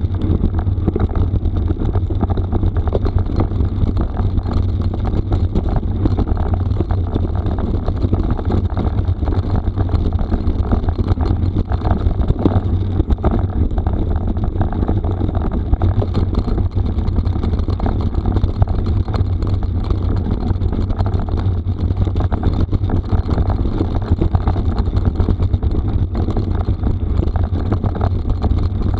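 Steady wind rumble on the microphone with the rattle of mountain-bike tyres rolling over a rough gravel forest road, without a break.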